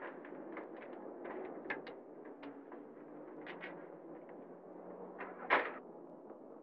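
A car door being worked: small clicks and knocks as it is unlocked with a key and opened, then one loud slam as it shuts about five and a half seconds in, over steady background noise.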